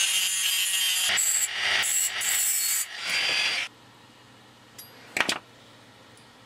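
Small rotary tool with a cut-off disc grinding through a thin metal can, cutting it open. It cuts in several passes with short breaks and stops about three and a half seconds in. A single sharp click follows about five seconds in.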